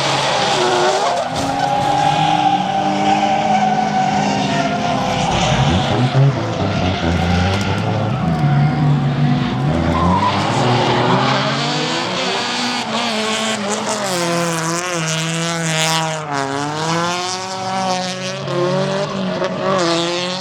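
Drift cars sliding with tyres squealing and engines revving hard, the engine note rising and falling with the throttle. About three quarters of the way through, one engine's note dips sharply and then climbs again.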